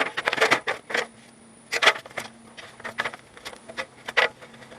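Irregular clanks and knocks of boots and hands on ladder rungs during a climb, in quick clusters, over a faint steady low hum.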